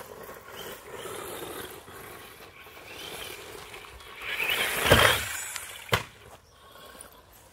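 Electric RC desert truck with a 550-size motor driving over grass, motor and tyres whirring, swelling loud as it passes close about five seconds in, followed by a single sharp knock.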